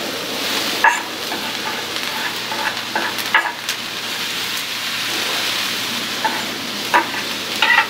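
Sliced onion and peppers sizzling in hot oil on a Blackstone flat-top griddle, a steady hiss. A few sharp clicks from the knife scraping the vegetables off the wooden cutting board onto the steel.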